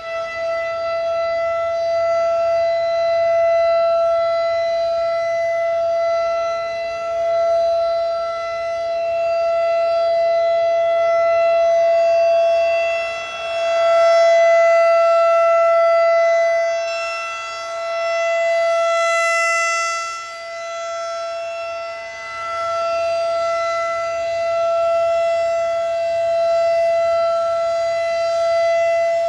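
Federal Signal 2001-SRN DC electronic outdoor warning siren sounding the steady alert signal of its monthly test: one unwavering tone of about 670 Hz, swelling and fading as the rotating siren head turns.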